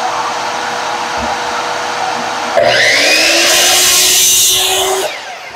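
A shop vacuum hooked to a Genesis GMS1015LC 10-inch compound miter saw runs steadily. About two and a half seconds in, the saw's motor starts with a rising whine and the blade cuts through an SPC vinyl floor plank, and the sound cuts off sharply about five seconds in.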